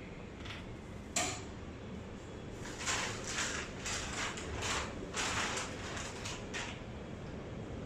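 Lightweight aluminium camp stand being handled: a sharp click about a second in, then a run of short metal sliding and rattling sounds as the frame is worked.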